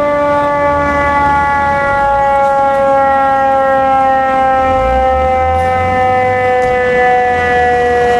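Fire engine's Federal Signal eQ2B siren sounding its wail tone: one long, loud note whose pitch slowly falls.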